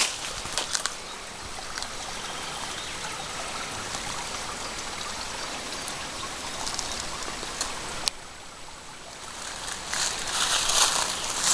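Shallow stream trickling steadily over a bed of cobbles and stones. A single click comes about eight seconds in, and a louder crackling rustle follows near the end.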